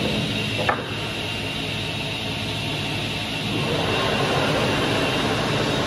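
Salvador SuperPush 300 optimizing cross-cut saw running, a steady mechanical drone with a low hum, as a board lies on its feed fence. A single sharp click comes just under a second in.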